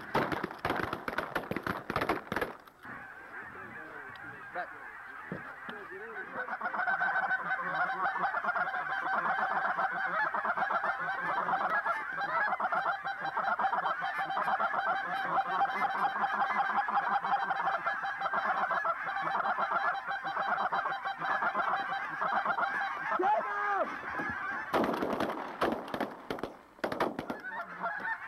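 A large flock of geese calling overhead: a dense, continuous din of honks and yelps that swells about six seconds in. Bursts of crackling noise come at the start and again near the end.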